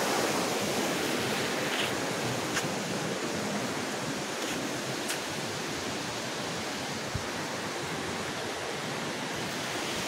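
Steady rush of a shallow forest river flowing over its rocky bed, with a few faint ticks.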